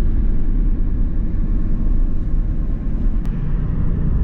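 A car driving along: a steady, loud rumble of road and wind noise heard from inside the car.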